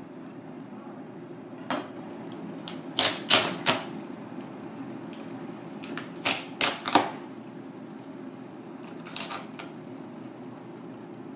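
A chef's knife chopping through cooked crab shell and knocking on a plastic cutting board: about eight sharp knocks, mostly in two quick groups of three, over a steady low hum.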